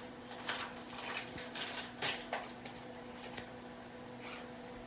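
Scattered light clicks and rustles of packaging and plastic or metal parts being handled while a new chainsaw's accessories are unpacked, over a faint steady hum.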